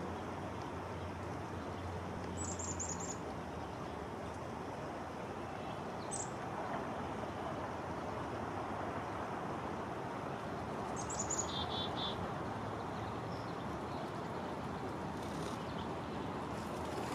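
Male wood duck giving thin, high, rising whistles over a steady background rush. A quick run of about five short notes comes about two seconds in, a single note around six seconds, and another run near eleven seconds that ends on a few lower notes.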